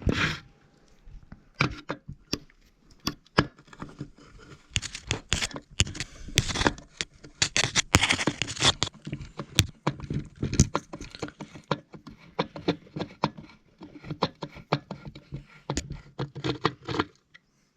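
Handling noise from opening up a bell's module box: irregular clicks, knocks and scrapes of plastic and metal parts being pulled apart and moved about, busiest in the middle.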